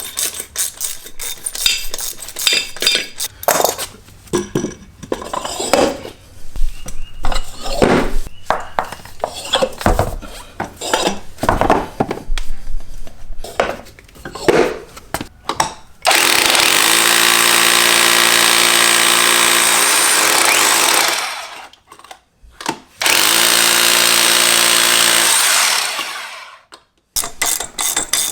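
Irregular metallic clicking and clattering of hardware being handled, then a power drill running twice to drive in screws: a steady run of about five seconds that winds down, and a second shorter run of about three seconds that stops abruptly.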